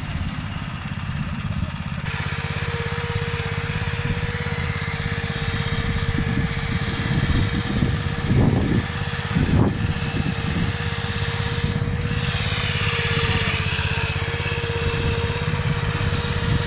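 Walking tractor engine running steadily while pulling a potato planter, with a steady whine joining about two seconds in.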